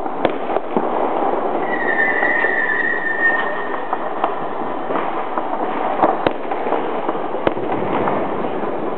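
Fireworks and firecrackers going off around a neighbourhood: a dense crackle of distant pops, with sharper single bangs scattered through. A high whistle, falling slightly in pitch, rises above it for about a second and a half, about two seconds in.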